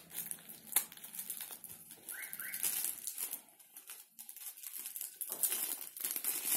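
Thin plastic packaging crinkling and rustling in repeated bursts as a small diaper wrapper is cut and pulled open, with a sharp snip of scissors near the start. Two brief rising squeaks come a couple of seconds in.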